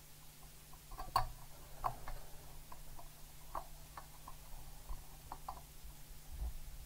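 Light, irregular plastic clicks and taps from a black plastic model bulkhead panel and a small precision screwdriver being handled, about a dozen in all, the sharpest a little over a second in.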